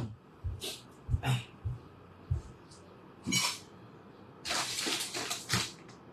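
A man coughing in short bursts away from the microphone, with a longer rough coughing spell about four and a half seconds in.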